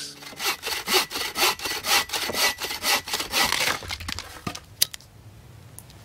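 Homemade wooden bucksaw with a Bahco blade cutting through a log, brisk back-and-forth strokes about four a second that stop about four seconds in. A single sharp click follows near the end.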